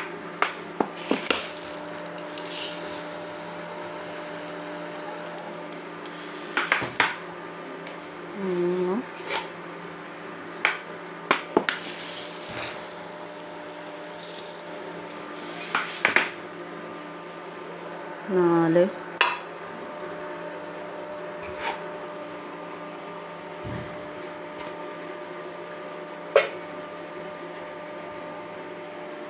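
Steel kitchen vessels clinking sharply now and then as rice is washed by hand in a steel bowl of water, over a steady hum.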